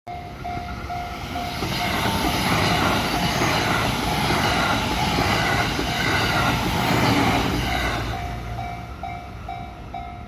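Train passing over a level crossing, its wheels and running noise loud for several seconds over the crossing's warning bell. The bell rings about two to three times a second and is heard clearly at the start and again near the end as the train noise fades.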